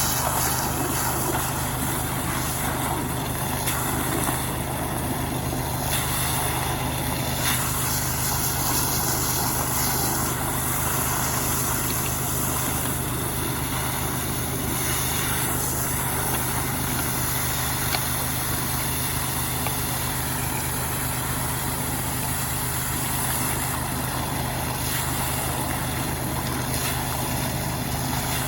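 Robin small petrol engine running steadily at a constant speed.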